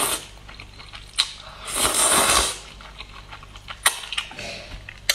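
Eating sounds: noodles slurped noisily into the mouth in a pull lasting about a second, with chewing and a couple of sharp clicks.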